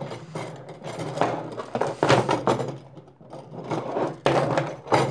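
Chest expander's steel springs and wire handle frames rattling and scraping on a tabletop as it is handled and moved, in several irregular bursts, the loudest near the end.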